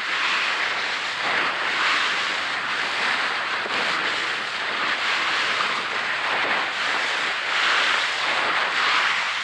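Steady rush of wind buffeting the microphone and water rushing past the hull of a fishing boat under way, swelling and easing in slow gusts.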